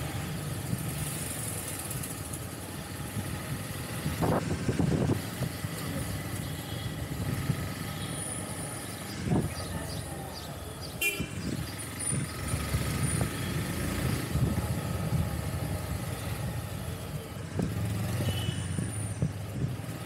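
A motorbike running at low speed through a busy street, its engine a steady low rumble. Traffic horns give a few short toots, the clearest about halfway through.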